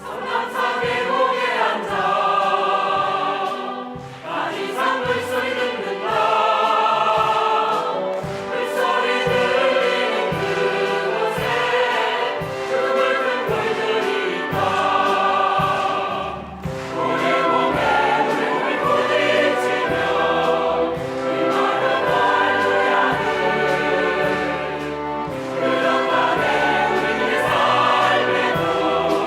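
A choir singing a Korean song in phrases, with instrumental accompaniment.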